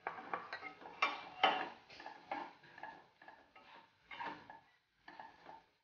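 A metal spoon scraping and clinking against a metal kadhai and bowl in a quick run of irregular strokes with a faint metallic ring, as ground roasted hurda is tipped into the oil tempering and stirred.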